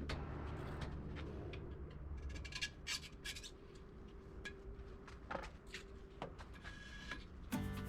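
Rubbing and scraping noises with scattered sharp clicks, from hands and tools working a tyre on a tyre changer. Background music comes back in near the end.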